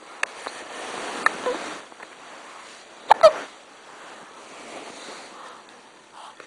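Two quick hiccups close together about three seconds in, after a second or so of soft noise.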